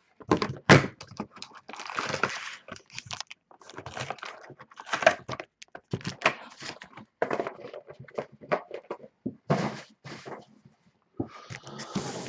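A cardboard box of 2014 Panini Black Gold trading cards being handled and opened by hand: irregular knocks and thunks with cardboard scraping and rustling.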